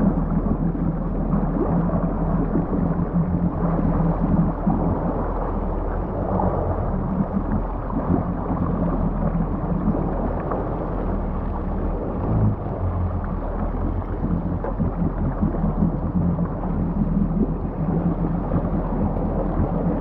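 Yamaha GP1800R SVHO jet ski's supercharged four-stroke engine idling at low speed, a steady low hum mixed with water noise.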